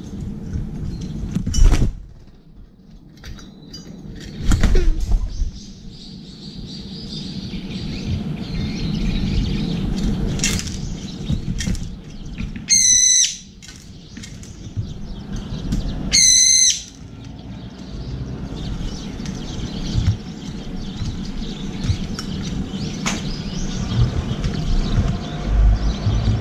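Brown-eared bulbul giving two loud, shrill calls about three and a half seconds apart, with a few brief wing flaps of birds moving around the feeder.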